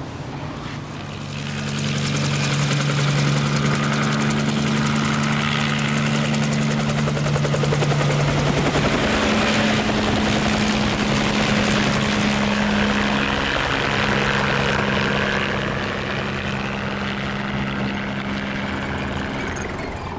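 Recorded helicopter sound played loudly through a Denon surround-sound system: rapid, even rotor chop over a steady engine hum. It swells up a second or two in, holds, and eases off a little near the end.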